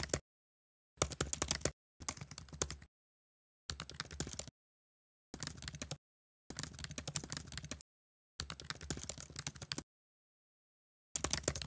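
Rapid keyboard typing clatter in about eight short bursts, each a second or so long, separated by dead silence.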